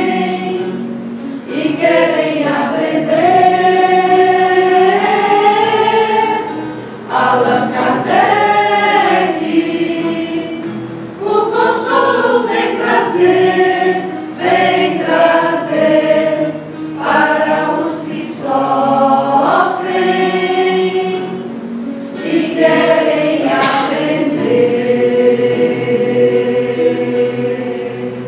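Mixed choir of women's and men's voices singing in harmony, in phrases of long held notes with short breaks between them; the last phrase fades away at the end.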